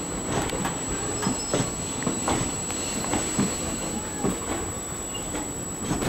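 Passenger train coaches running past close by: a steady rail rumble with irregular clacks of the wheels over the rail joints.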